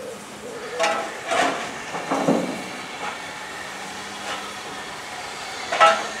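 Ex-GWR 1500 class pannier tank locomotive No. 1501 drifting in slowly with a train of coaches, with a light hiss of steam. A few irregular short bursts of sound break through, the loudest near the end.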